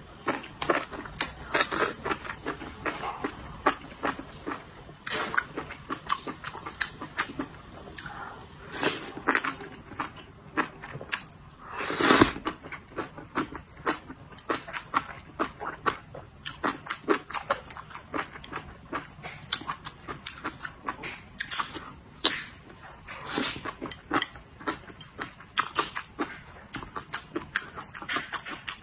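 Close-up mouth sounds of a person eating enoki mushrooms: rapid wet chewing and smacking clicks with slurps of the strands, and one longer, louder slurp near the middle.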